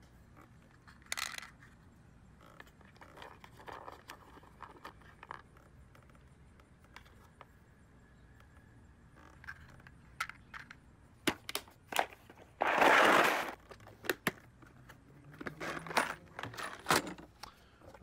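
Small brass refrigerant caps and fittings clinking and rattling against each other in a plastic parts organizer as they are picked through by hand. Scattered clicks, with a louder rattle lasting about a second about two-thirds of the way through.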